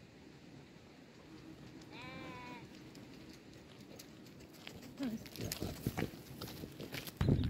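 A single short, wavering bleat of a sheep about two seconds in. From about five seconds a dog's footfalls and rustling come close, getting loud near the end as the dog pushes against the camera.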